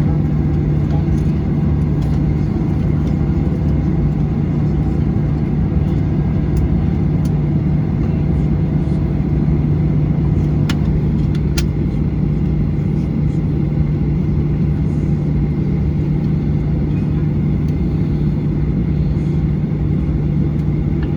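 Steady cabin drone inside a Boeing 737-800 with its CFM56 engines running at idle, a constant low hum under a broad rumble. Two faint clicks a little after the middle.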